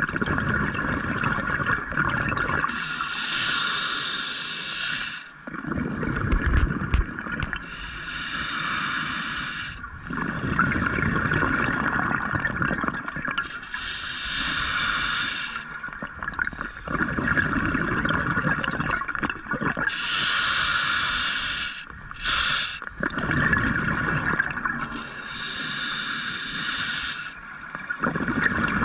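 Scuba diver breathing through a regulator underwater: a hissing inhale alternates with a low bubbling rush of exhaled air, about once every five to six seconds, over a constant background hiss.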